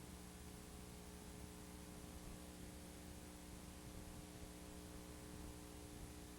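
Near silence: a steady hiss with a faint, constant electrical hum.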